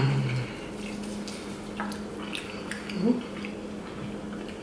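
Brief low vocal sounds: a short held one right at the start and a quick rising one about three seconds in, over a steady low hum, with a few faint clicks.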